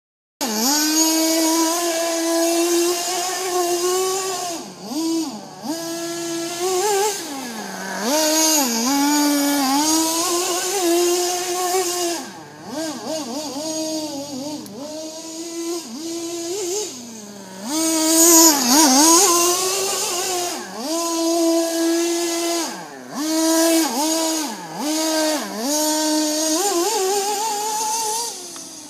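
Small nitro (glow-fuel) two-stroke engine of an HSP Camper radio-controlled buggy, running hard and revving up and down over and over as it is driven. The pitch dips each time the throttle comes off, then climbs again.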